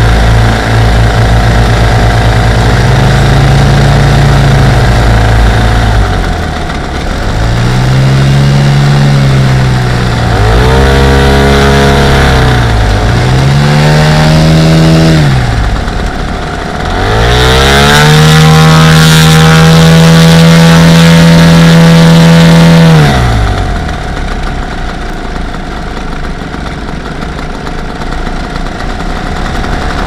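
Lazair ultralight's twin small two-stroke engines and propellers while taxiing: the throttle is opened and closed several times, the engine pitch rising and falling with each burst. It is then held high for about six seconds before dropping back to a low idle.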